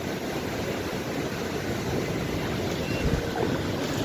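Surf washing on the beach, with wind buffeting the microphone: a steady, even rush with no distinct events.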